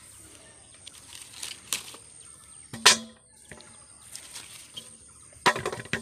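Green mangoes dropped into a stainless steel bowl: two sharp clanks about two and a half seconds apart, each with a short metallic ring, the second with a quick rattle as the fruit settles.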